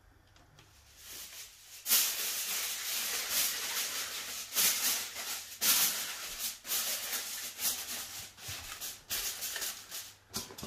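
Steam hissing and sputtering from a steamer cooking chicken pieces, starting suddenly about two seconds in and going on unevenly, surging and easing.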